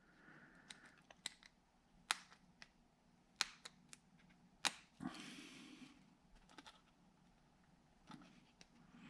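Faint, scattered sharp clicks and taps of small parts and tools being handled, with a short scraping rustle a little past the middle.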